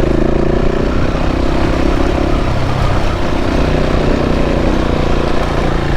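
KTM 690's single-cylinder engine running under throttle as the motorcycle climbs a rocky mountain track, steady after picking up just as the sound begins.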